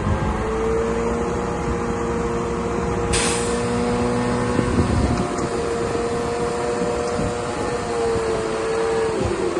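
DH17 C2 LGP bulldozer's diesel engine running steadily, its pitch dipping briefly under load near the end. A short sharp hiss about three seconds in.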